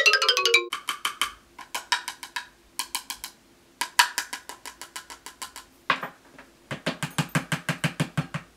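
A plastic tub of Coty Airspun loose face powder shaken in short runs of quick rattling knocks, about seven a second, with pauses between runs. It opens on the tail of a descending run of chime-like notes.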